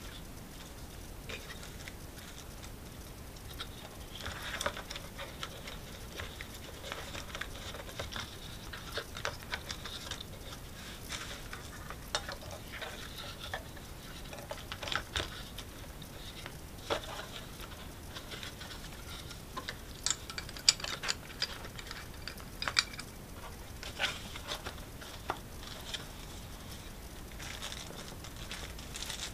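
Cardboard packaging and a small plastic device being handled: irregular taps, clicks, scrapes and rustles as the device is fitted into a cardboard box insert, with a few sharper taps past the middle.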